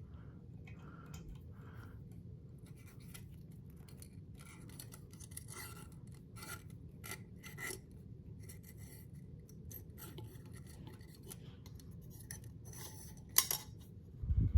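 Electrical wires being fed through a ceiling fan's metal down rod: a run of scratchy rubbing and small clicks, with a sharp knock near the end.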